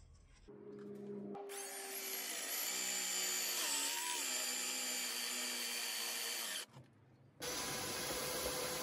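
Power drill with a Forstner bit boring into a hardwood board: the motor spins up, then bites into the wood about a second and a half in, running with a steady whine and cutting noise before stopping about six and a half seconds in. After a short pause a second motor sound starts and runs steadily to the end.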